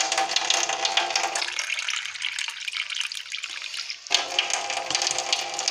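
Tap water running in a steady stream into a stainless steel sink. The fuller, lower part of the sound drops away for a couple of seconds in the middle, then returns.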